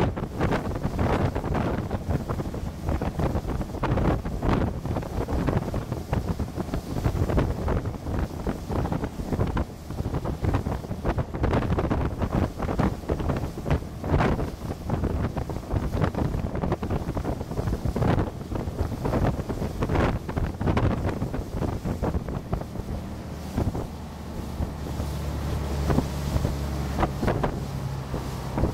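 Wind buffeting the microphone on the open bow of a small ferry under way, over the low rumble of its engine and the wash of the water. Toward the end the gusts ease and the engine's steady low hum comes through more plainly.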